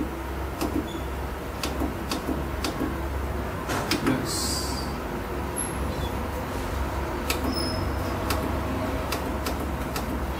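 Push buttons on an electronic traffic light controller's front panel being pressed: a string of short, sharp clicks at irregular intervals, over a steady low hum.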